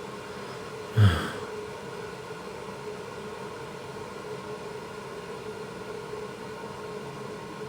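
A man coughs once, briefly, about a second in: a cough brought on by cigarette smoke. A faint, steady room hum runs underneath.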